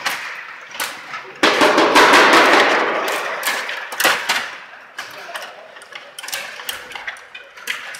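Stiga Play Off table hockey game in play: quick hard plastic clacks and knocks of the rods, player figures and puck against the board. About a second and a half in comes a sudden loud, noisy rattle that fades over about two seconds.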